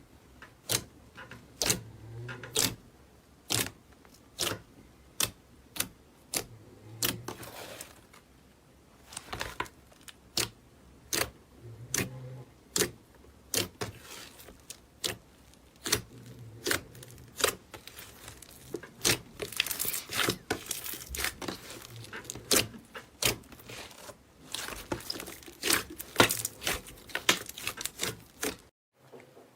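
Slime being squeezed and poked, making a run of sharp wet pops and clicks about once or twice a second, with denser crackling stretches in the later part.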